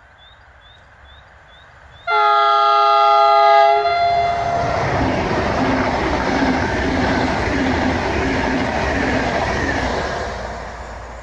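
PKP Intercity Pendolino high-speed electric train sounding a chord horn for about two seconds, about 2 s in, then rushing past close by at speed, fading near the end.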